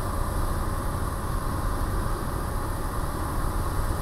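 Single-engine light aircraft's piston engine and propeller running at a steady cruise power, heard inside the cockpit as an even low drone with air rushing over the cabin.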